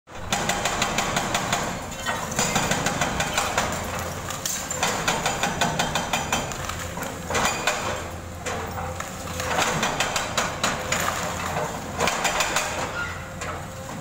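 Demolition excavator's diesel engine running steadily under runs of rapid, sharp knocking, about six blows a second, each run lasting a second or two, as the boom's attachment works the concrete of the building.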